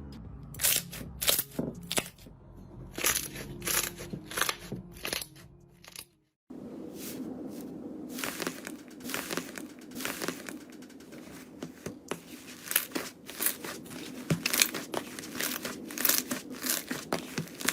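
Slime being squeezed and poked by hand, giving a run of sharp sticky pops and crackles. The sound drops out briefly about six seconds in, then the popping comes back denser.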